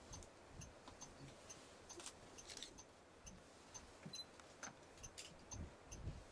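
Near silence with a faint, regular ticking, about two ticks a second, and a few soft low thumps.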